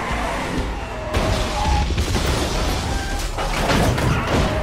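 Action-film car chase sound mix: a car skidding and sliding, with several loud crashes and bangs over a steady low rumble.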